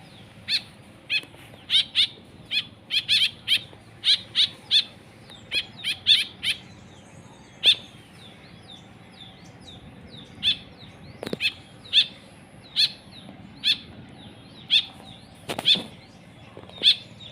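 A caged songbird giving short, sharp chirps over and over, in quick clusters for the first several seconds, then spaced about one a second.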